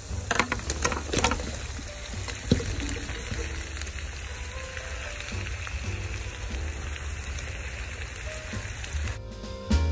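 Hot oil sizzling in a pan as turkey pieces fry with garlic and chili, a steady crackling hiss that stops suddenly near the end. There are a few sharp clicks in the first second or so and one about two and a half seconds in.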